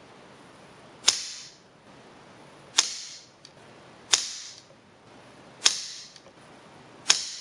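FX Revolution .22 PCP semi-automatic air rifle firing five shots about one and a half seconds apart, the action cycling itself after each one. Each report is sharp and dies away in a short room echo.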